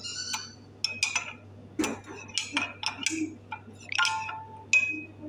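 A metal spoon stirring liquid salad dressing in a ceramic mug, clinking against the sides in a dozen or so irregular taps, some ringing briefly.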